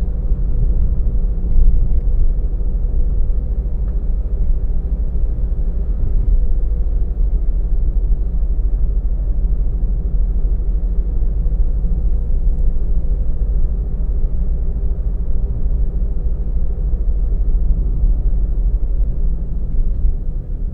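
A car driving, recorded by a camera mounted in the car: a steady low rumble of tyres and engine, with a faint steady hum above it.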